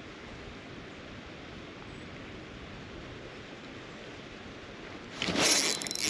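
Low steady outdoor hiss of creek water; about five seconds in, a sudden loud burst of splashing and rustling as a hooked trout thrashes at the surface.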